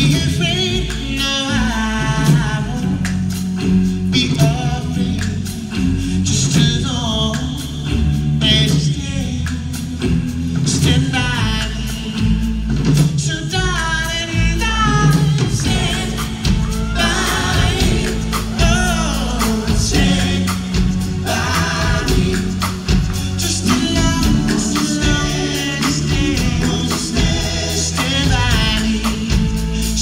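Live performance by a male vocal quartet: a lead voice singing a slow melody over close-harmony backing vocals, with a band's bass and guitar underneath.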